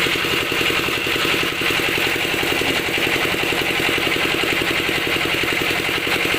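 A small engine running steadily, with a rapid, even pulse over a hiss; it comes up in level right at the start.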